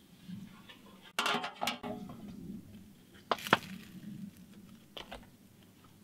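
Dishes and utensils clinking as they are handled: a quick run of knocks about a second in, two sharp clinks at about three and a half seconds, the loudest, and a lighter one near five seconds.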